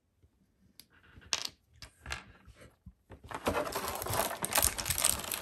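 Thin clear plastic packaging crinkling and crackling as it is handled. It starts with a few light clicks, then turns into dense crackling from about three seconds in.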